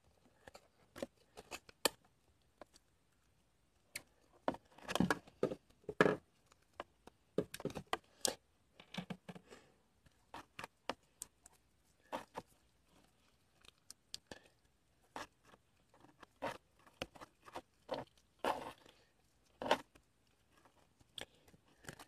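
Homemade slime being pressed, pulled and kneaded by hand, giving irregular sticky clicks and crackles in uneven clusters.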